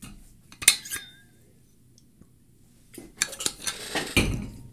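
Small hard objects clinking and clattering: a sharp clink with a short ring about half a second in, then a run of rattling knocks near the end.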